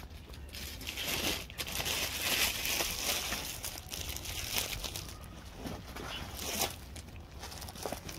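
Irregular crinkling and rustling of packaging, with short crackles, busiest in the first half and again briefly about two-thirds of the way in.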